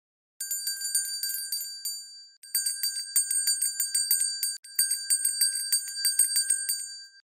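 A small bell rung rapidly, its quick strikes merging into a fast ringing trill. It comes in three bouts with short breaks between them.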